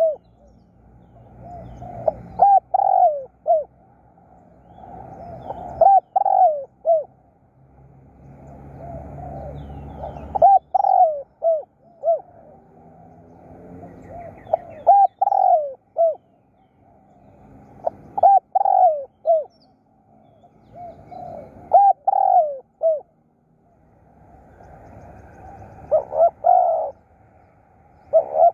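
Spotted dove cooing: a short phrase of three or four coos, repeated about every four seconds, seven times over.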